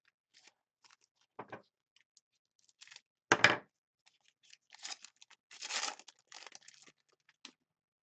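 Trading-card pack wrapper and cards being handled: crinkling and tearing, with one much louder sharp tear a little over three seconds in and a run of crinkling after it.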